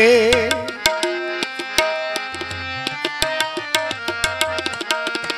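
Kirtan accompaniment: tabla playing a quick, busy rhythm under a harmonium phrase of held notes stepping from pitch to pitch. The singer's last sung note tails off in the first half second.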